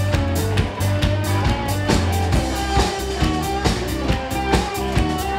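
A rock-style band playing: drum kit with a steady beat, electric guitar and bass guitar.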